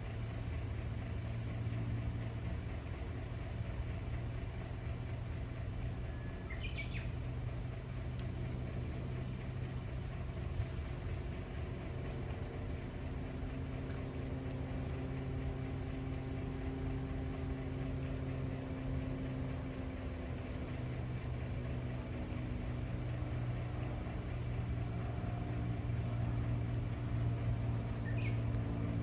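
A steady low mechanical hum with a slowly wavering pitch, like an engine idling, with a brief high chirp about seven seconds in and another near the end.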